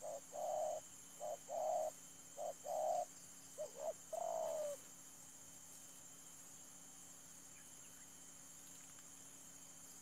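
Spotted dove (tekukur) cooing: four phrases of low coos in which short notes lead into longer ones. The last note is drawn out and falls in pitch, ending about five seconds in. A steady high insect drone continues underneath.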